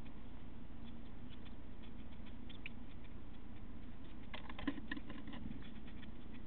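Blue tit nestlings and a parent moving about in a wooden nest box: light scratching and ticking of claws and beaks on the nest material and wood, over a steady low hum. A busier burst of scrabbling with a soft knock comes about four and a half seconds in.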